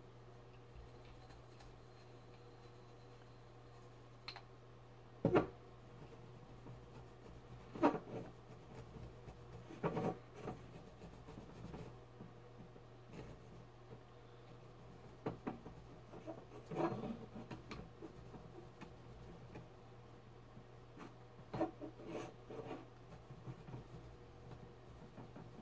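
A cloth and scrubbing sponge rubbing over a silver-plated goblet, faint and irregular, with occasional sharper scrapes and light knocks as the goblet is handled. A steady low hum runs underneath.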